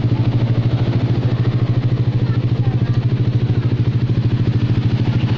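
Yamaha NMAX scooter's single-cylinder engine idling steadily, with an even, rapid pulse.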